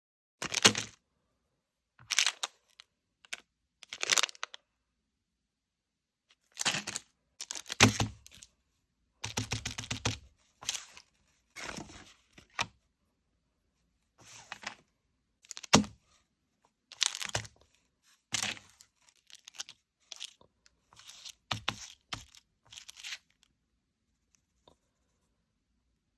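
Plastic and cardboard packaging of a Pokémon card Elite Trainer Box being torn open and handled, in irregular short crinkling and tearing bursts with pauses between.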